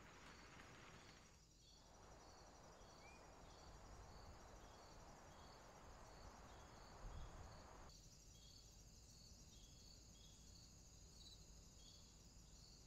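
Near silence: a faint background hiss with a faint, high chirping that repeats evenly about twice a second.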